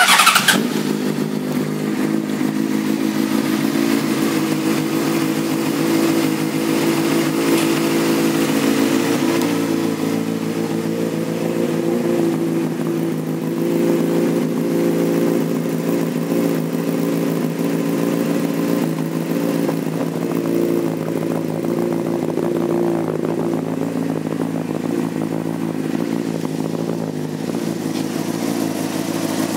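A 2006 Honda CBR600RR's inline-four engine, fitted with a Yoshimura aftermarket exhaust, catches at the very start and then idles steadily.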